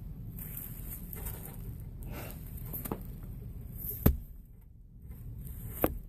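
Braided rope strands being handled and drawn through while half hitches are tied around the end of a rein, over a steady low hum, with three short sharp snaps or clicks, the loudest about four seconds in.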